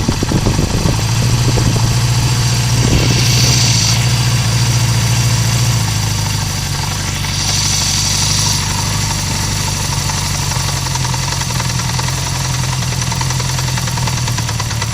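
Honda CB350F inline four-cylinder engine idling at low rpm with a clunking, knocking noise.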